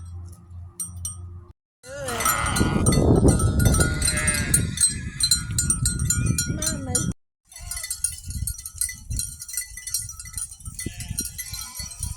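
A flock of Gulf Coast native sheep bleating, several wavering calls overlapping, loudest about two to seven seconds in. Gusts of wind buffet the microphone.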